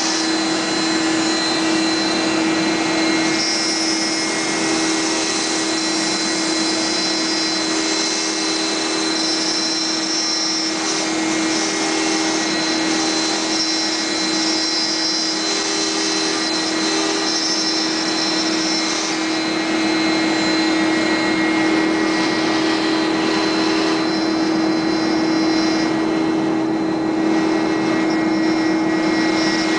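CNC router running, with a steady hum and a wash of machine noise, while higher tones switch on and off every second or two as it moves.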